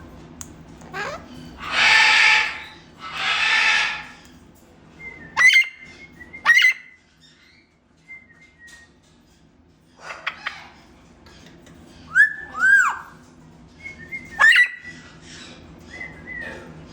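A parrot calling: two loud, harsh squawks, then a string of short, sharp whistles with quick rises and falls in pitch, one of them a curved swoop.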